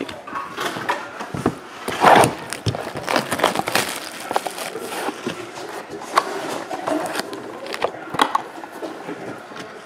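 Cellophane shrink wrap crinkling and tearing as it is pulled off a sealed trading-card box, with scattered clicks and taps of the cardboard box being handled. The loudest crinkle comes about two seconds in.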